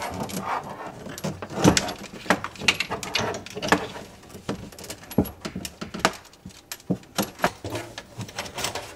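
Irregular clicks, clinks and knocks of hands fitting the under-sink hardware of a new kitchen faucet in a cramped sink cabinet.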